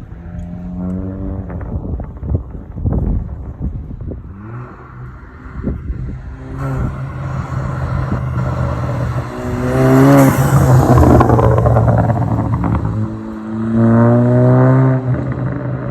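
Mk7 VW Golf on a Reflect remap with a catted downpipe, revved several times, the pitch climbing each time. Between and after the revs the exhaust gives off pops and crackles.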